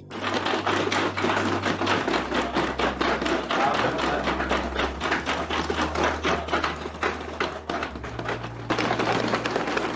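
Many hands banging and tapping on wooden desks together in a fast, dense clatter, students' show of approval for the point just made. Under it, low sustained music notes change pitch every two to three seconds.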